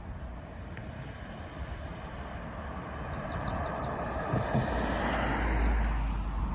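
A motor vehicle passing close by: a rush of engine and tyre noise that builds over several seconds and peaks near the end with a low rumble, then begins to fade.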